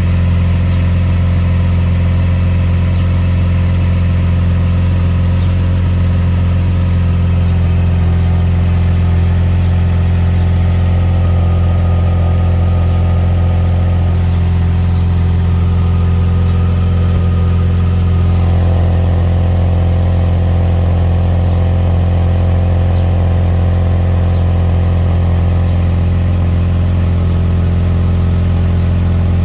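1997 Lexus LX 450's 4.5-litre inline-six (1FZ-FE) idling steadily. The owner wonders whether the sound shows an exhaust leak.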